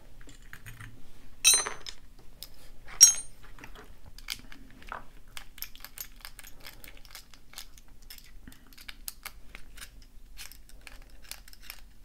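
Small metal parts of a combination deadbolt clinking and clicking as it is taken apart with a precision screwdriver: two sharper metallic clinks with a brief ring about a second and a half and three seconds in, then a run of light clicks and ticks.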